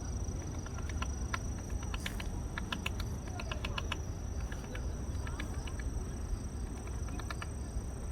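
Woodpecker pecking into tree wood: irregular single taps, with a quick run of taps about two to three seconds in and another short cluster near the end.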